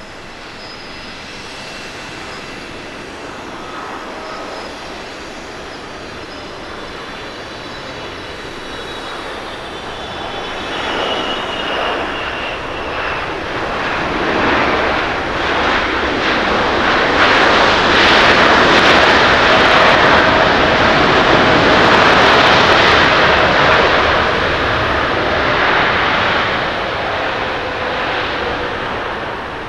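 Boeing 777-300ER jet landing. The engine whine is faint at first, with slowly falling tones. After touchdown a broad engine roar builds, loudest in the second half, typical of reverse thrust during the rollout, then eases off near the end.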